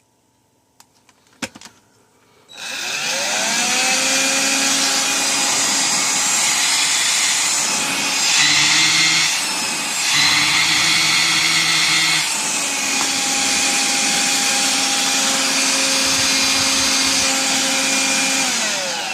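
Electrolux ZB3006 cordless stick vacuum running on its refitted 14.4 V battery pack. After a few clicks the motor spins up with a rising whine and runs steadily. Its note changes for a few seconds partway through, and it winds down with a falling whine near the end.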